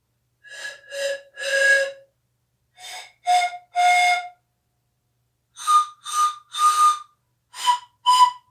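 Pan pipes played by blowing across the tube tops: breathy notes in little groups of three, two short then a longer one, each group at a different pitch.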